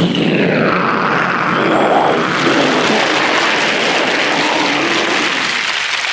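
Vocally imitated atomic bomb explosion: a sudden blast right at the start, then a long, steady rumbling roar that eases slightly near the end.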